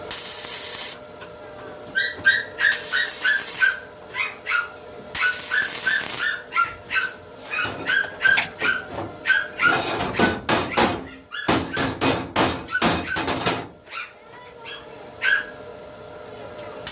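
A small dog yapping in quick, high-pitched yips, about two or three a second, mixed with several loud scraping strokes in the middle.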